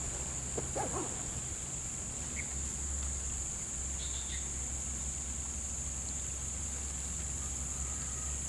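Steady high-pitched drone of insects, with a few faint short chirps partway through.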